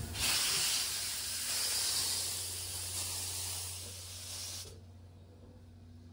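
C58 steam locomotive venting steam: a loud, steady hiss that starts right away and cuts off suddenly about four and a half seconds in, over a steady low hum.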